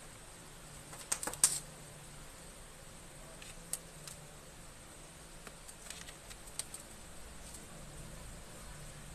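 Small clicks and taps of a plastic spudger and ribbon cables being handled inside an opened MacBook Pro's case: a quick cluster of sharp clicks about a second in, then scattered lighter ticks. A faint low hum sits underneath.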